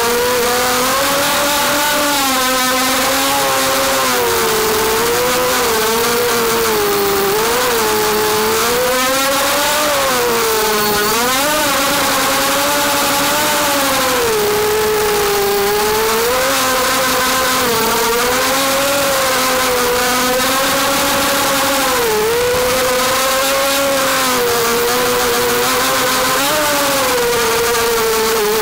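250-size FPV racing quadcopter's four brushless motors and propellers whining, heard from its onboard camera, the pitch swooping up and down continuously with the throttle as it manoeuvres.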